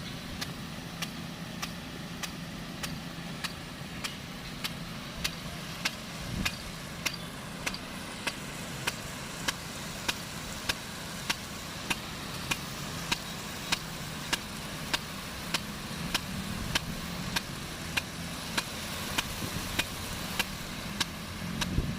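Sime Hidra big-gun rain sprinkler running: its drive arm clicks at an even beat, a little under twice a second, over a steady low engine hum.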